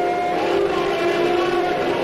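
Background music with long, held choral chords.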